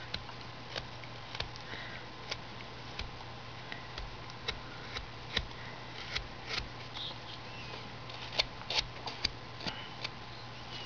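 Carving knife taking small slicing cuts in wood, a string of short, sharp snicks, with a quick run of them about three-quarters of the way through, as the wood is shaped to a point.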